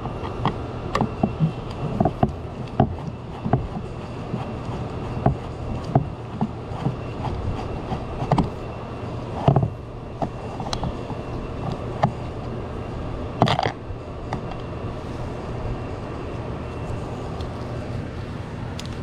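Irregular small clicks and taps of hand tools and screws while the screws are taken out of a car's door panel, over a steady low hum. A louder scrape or rustle comes about two thirds of the way in.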